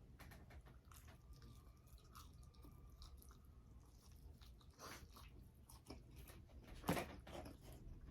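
Faint close-up chewing and mouth sounds of someone eating, with two louder crunchy bites about five and seven seconds in.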